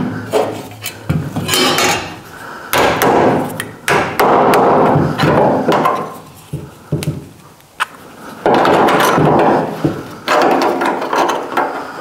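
Small hand hammer tapping a sheet-steel rust-repair patch into the rear window frame of a 1970 Chevrolet El Camino. The taps come quickly in bursts of about a second, with short pauses between.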